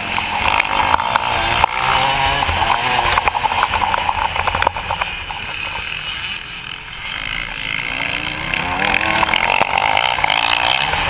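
Motocross bike engine heard from on board at racing speed, its revs rising and falling as it is ridden. It eases off around the middle, then picks up again.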